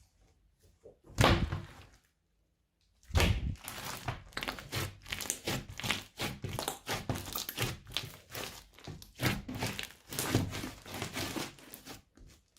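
Glitter slime being squished and kneaded by hand: a brief burst of sticky sound, a short gap, then a long, continuous run of wet clicks, crackles and pops.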